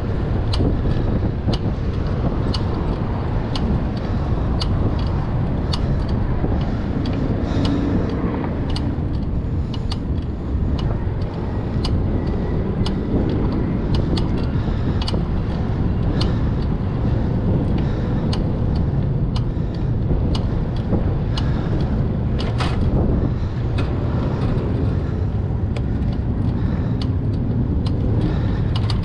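Steady wind rush on the microphone and tyre noise from a bicycle rolling along a paved, then gravel, path, with frequent sharp clicks and rattles from the bike jolting over the rough surface.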